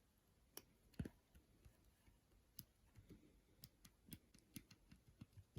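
Near silence with a dozen or so faint, irregular clicks and taps from handling wires and small parts on a workbench, the strongest a dull tap about a second in.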